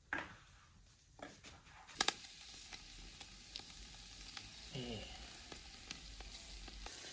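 Bone-in pork pieces sizzling as they sear on a charcoal grill grate over hot coals: a steady hiss with small scattered crackles that builds after the first couple of seconds. A few sharp knocks near the start, the loudest about two seconds in.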